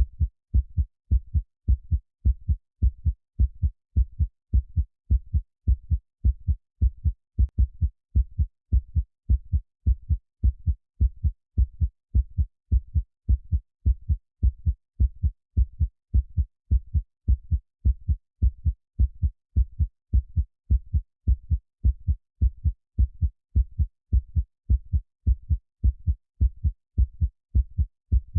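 Heartbeat sound: a steady, even rhythm of paired low thumps, lub-dub, with nothing between the beats.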